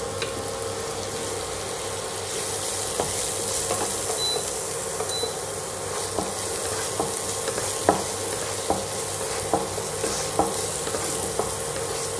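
Chopped onion and whole garlic cloves frying in oil in a kadhai, sizzling steadily as the onion is browned. A wooden spatula stirs them, knocking against the pan about once a second from a few seconds in.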